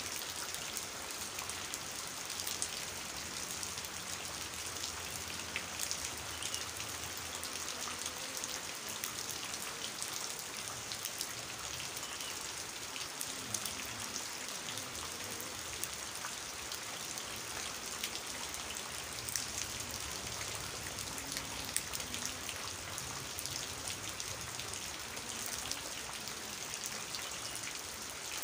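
Heavy rain falling onto standing muddy water and leafy plants: a steady hiss dotted with many small, sharp drop splashes.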